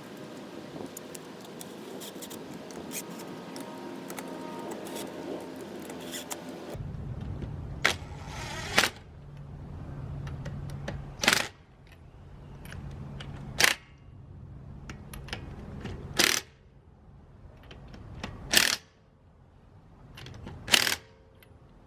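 Lug nuts being run down onto a new wheel's studs: short, sharp metallic bursts about every two and a half seconds, each after a brief rising whir, following several seconds of steady background noise.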